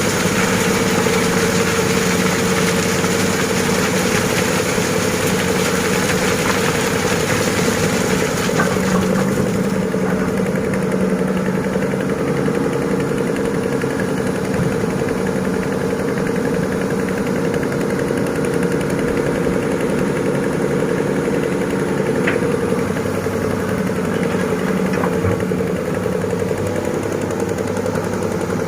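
Heavy diesel engine of an excavator or dump truck running steadily. A higher rushing noise over it dies away about nine seconds in, and there are a few faint knocks.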